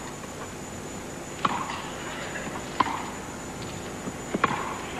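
Tennis rally on a grass court: a ball struck back and forth by racquets, three crisp hits about a second and a half apart with lighter clicks between them, over a steady faint background hiss.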